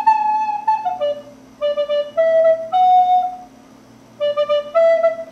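Solo wooden recorder playing a slow melody, one held note at a time, in three short phrases with brief pauses between them, about a second in and again past the halfway point.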